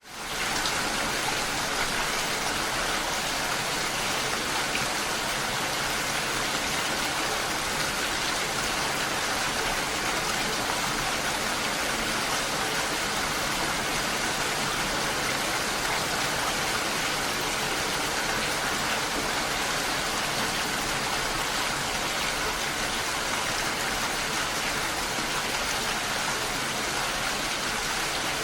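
Steady, dense rain: an even hiss of falling water that swells up from silence at the start and then holds constant.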